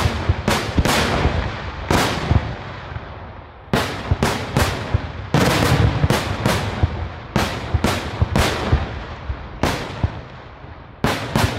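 Daytime aerial fireworks bursting in rapid, irregular salvos of loud bangs, each bang echoing briefly. There are brief lulls a little before halfway and again shortly before the end.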